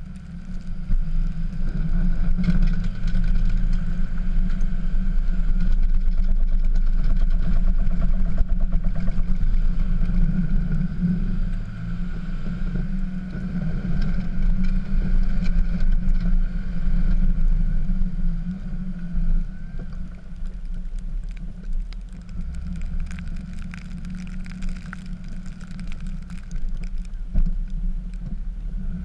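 Dodge pickup's Cummins turbo-diesel inline-six running steadily while plowing snow, louder for the first half and easing off somewhat after.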